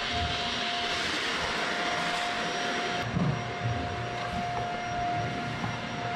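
Steady machine drone with a constant mid-pitched hum and hiss, with a soft low bump about halfway through.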